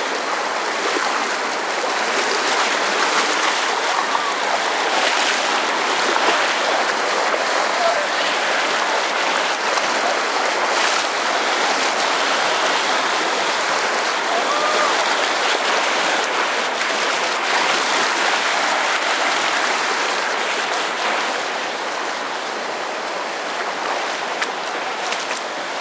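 Shallow East Fork San Gabriel River rushing steadily over rocks, with occasional splashes from hikers' feet wading through the water.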